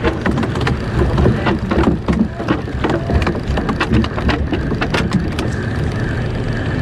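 A school of small tuna (tongkol) feeding at the surface, the water 'boiling': many irregular little splashes patter like rain, over a steady low rumble.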